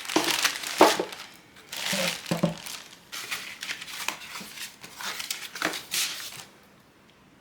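Cardboard-and-plastic cooler packaging being handled, with irregular crinkling rustles and a few sharp clicks. It stops about a second before the end.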